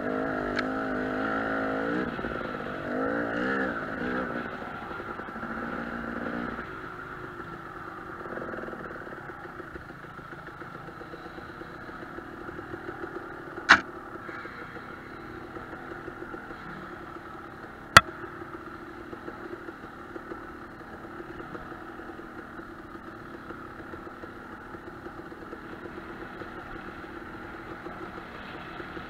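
KTM 300 two-stroke dirt bike engine revving up and down for the first several seconds, then running steadily at lower revs. Two sharp knocks come through, about 14 and 18 seconds in.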